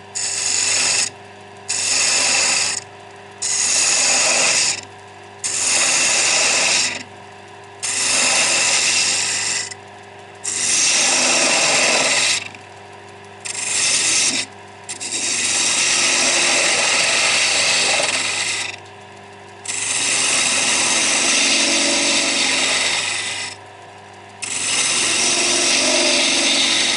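Bowl gouge cutting into a spinning wooden blank on a wood lathe, a harsh rushing scrape in about ten passes of one to four seconds each, the longest near the middle and end. In the short gaps between cuts, only the lathe's steady running hum remains.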